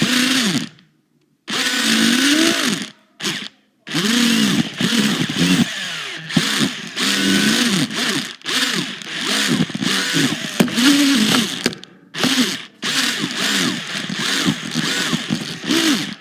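Toy RC car's small electric motor whining in repeated short throttle bursts, its pitch rising and falling with each burst. It cuts out briefly about a second in, again around three and a half seconds, and near twelve seconds.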